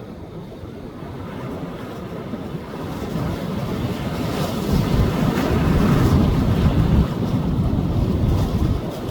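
Sea waves breaking on a beach: the surf roar swells for several seconds to a peak about five to seven seconds in, then eases off, with wind buffeting the microphone.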